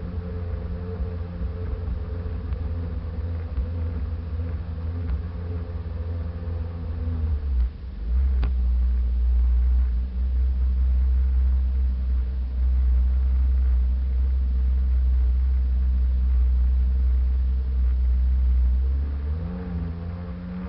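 Sea-Doo personal watercraft engine running steadily under a heavy low rumble. About eight seconds in the rumble grows louder and the engine note shifts, then it drops back near the end; a single sharp click comes just after the rise.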